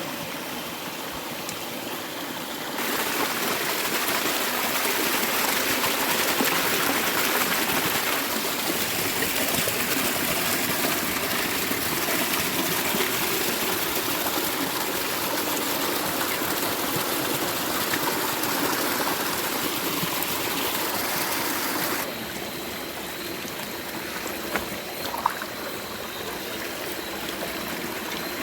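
Creek water running and trickling over stones, a steady rush that grows louder about three seconds in and drops back about twenty-two seconds in. A couple of short knocks near the end.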